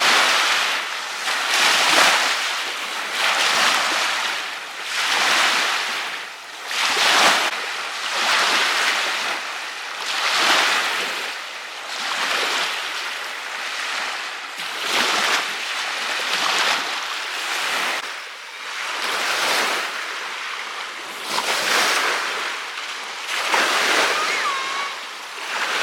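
Small lake waves washing onto the shore, one wash swelling and falling away about every one and a half to two seconds.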